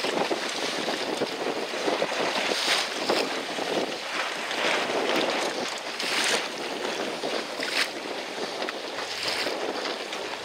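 Choppy sea water sloshing and splashing against a small boat, with wind on the microphone; the splashing swells in louder surges every second or two.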